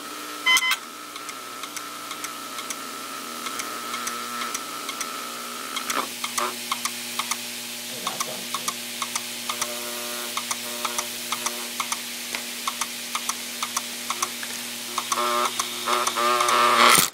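Opened 7200 rpm hard drive's spindle motor running with a steady whirring hum, its platter spinning with a marker pressed against it. From about six seconds in, repeated sharp clicks and ticks sound over the hum, growing into a louder rough scraping just before the end.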